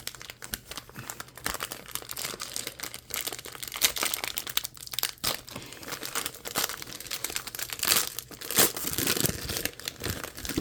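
Wrapper of a 2023 Bowman Draft trading card pack being torn open and crinkled: a dense run of crackles and rustles, loudest about four seconds in and again near the end.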